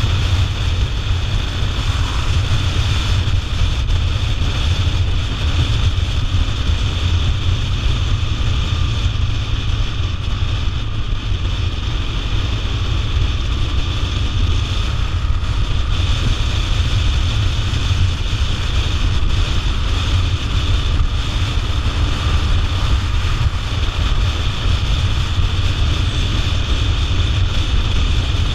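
Motorcycle riding at a steady cruising speed, heard as constant wind rush and buffeting on the microphone with engine and road noise underneath, without any change.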